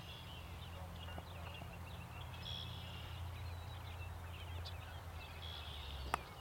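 Open-field ambience: a low steady rumble with birds chirping now and then, and a single sharp crack about six seconds in as a cricket bat strikes the ball.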